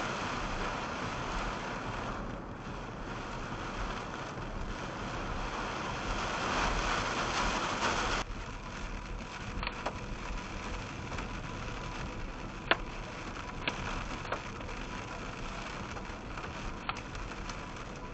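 Rain on a vehicle, a steady rushing wash that abruptly turns lighter about eight seconds in. After that a few single sharp hits strike the vehicle.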